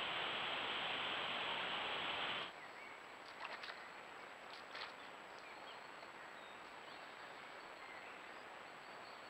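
Forest ambience from a trail camera: a steady rushing noise that cuts off abruptly about two and a half seconds in, then a quieter woodland background with a few faint short clicks and bird chirps over a thin, steady high whine.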